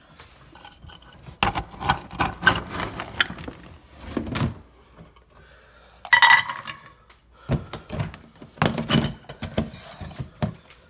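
Dry dog kibble being scooped with a plastic cup and poured into a dog bowl: bouts of rattling, clinking pieces, loudest in a short rush about six seconds in as the cup is tipped into the bowl.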